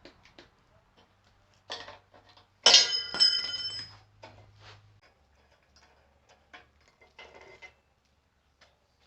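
Light clicks and knocks from handling small metal parts and tools. About three seconds in, one sharp metallic clink rings on for about a second.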